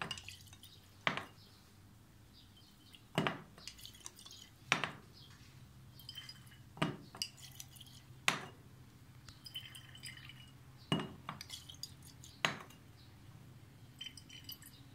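A glass conical flask clinking as it is swirled under a burette during a dropwise titration: about seven sharp glass clinks, one every second and a half to two seconds, some leaving a faint ring.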